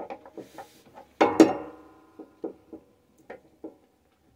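Metal hand tools clinking and knocking against the broken-off muffler thread stuck in a lawnmower engine's exhaust port, with one loud ringing metallic clang a little over a second in.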